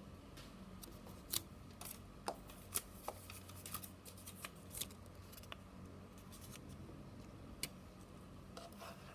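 Faint scattered clicks and ticks over a low steady hum, a cluster of about a dozen in the first few seconds and a few more later on.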